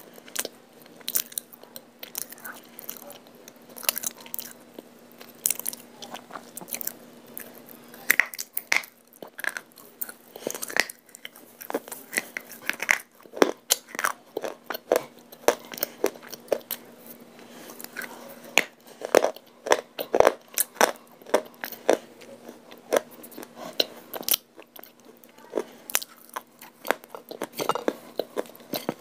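Crunching and chewing of a hard, brittle white clay chunk: irregular sharp crunches, several to a second, with short gaps between bites.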